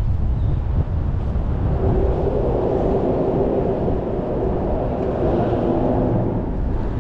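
Road traffic on a bridge: a steady rumble of passing cars, with one vehicle's hum swelling about two seconds in and fading near the end, and wind buffeting the microphone.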